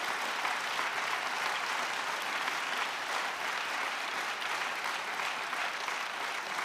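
A large seated audience applauding, steady, dense clapping throughout.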